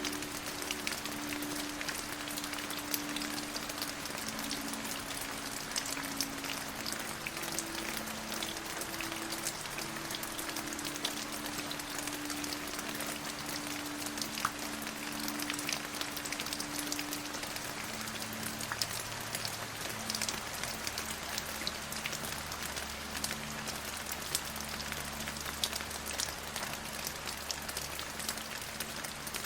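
Steady rain falling on a surface, an even hiss dotted with the fine ticks of individual drops.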